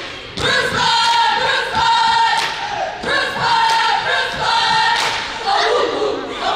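A group of cheerleaders chanting a cheer in unison in a gym, their voices in rhythmic, drawn-out phrases, punctuated by sharp thuds of stomps or claps.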